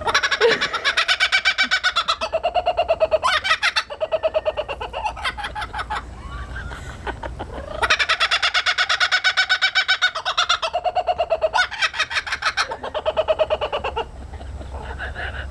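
Kookaburra giving its laughing call: two long bouts of rapid, repeated chuckling notes, each about six seconds, with a short pause between them.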